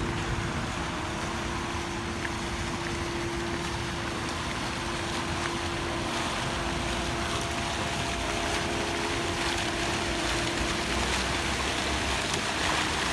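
Steady engine drone with a constant hum over an even rushing noise.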